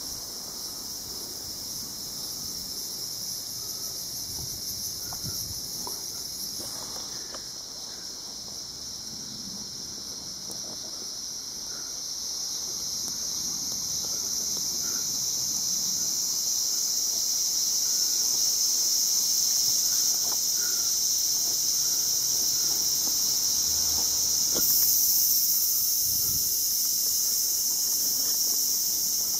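Cicadas singing in a steady high-pitched drone that swells louder partway through and rises again near the end.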